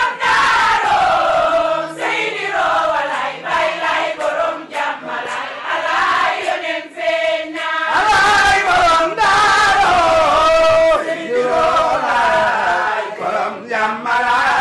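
A congregation of men and women chanting a Muslim religious chant together in unison, voices moving in long rising and falling melodic phrases.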